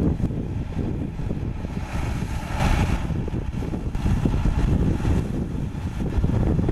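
CAT D5K2 XL crawler dozer's diesel engine running under load as it pushes a blade of dirt, a steady low rumble with the clatter of its tracks. A brief rush of higher hiss comes about two and a half seconds in.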